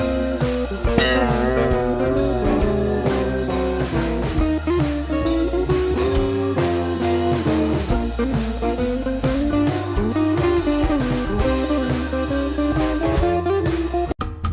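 Background music: electric guitar over a drum kit in a blues-rock style, with a steady beat. It breaks off briefly near the end.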